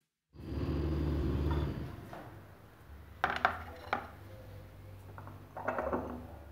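A metal spoon clinking against a glass mug, a few sharp clinks in two clusters, about three seconds in and again near the end. A low steady hum fills the first second and a half.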